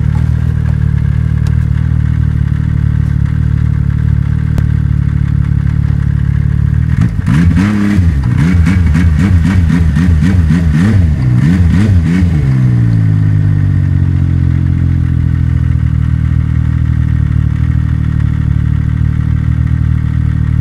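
Snowmobile engine idling, then revved up and down in quick blips, about two a second, for around five seconds before dropping back to a steady idle.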